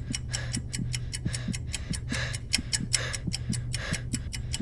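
Rapid, even ticking of a time bomb's timer, about five or six ticks a second, over a low steady hum.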